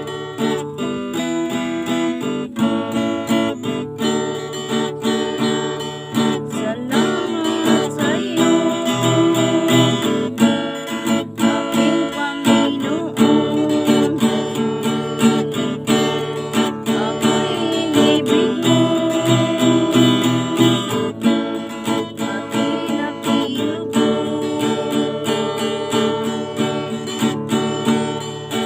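Acoustic guitar strumming steady chords.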